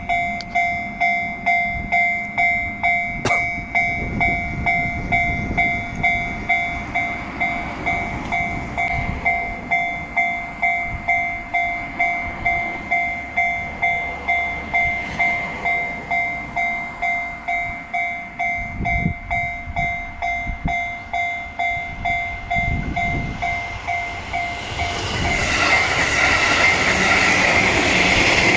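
Japanese railway level-crossing alarm ringing its two-tone "kan-kan" about twice a second. Near the end a JR San'in Line local train runs through the crossing, and its rumble rises over the bell.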